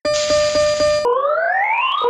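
Japanese railway level-crossing alarm bell ringing with its rapid repeated strikes, warped about a second in into a rising, sliding tone that starts over roughly once a second, as if the bell has gone soft.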